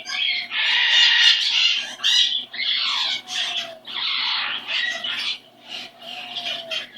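Pet cockatoo making a string of short, raspy squawks and chattering calls, with pauses between them.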